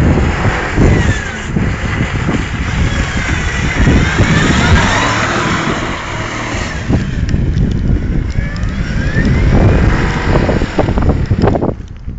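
Range Rover 4.4-litre V8 engine revving as the SUV drives through deep mud, its pitch rising and falling several times. It eases off near the end.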